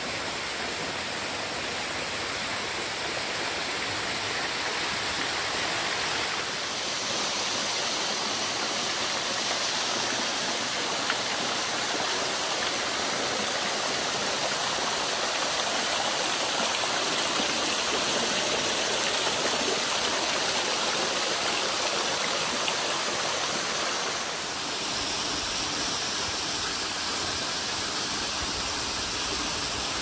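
A thin waterfall pouring in strands down a rock face and splashing into a pool: a steady rushing and splattering of water, shifting slightly in tone twice.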